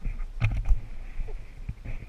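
Scattered knocks and taps against a kayak, over a steady low rumble of wind on the microphone.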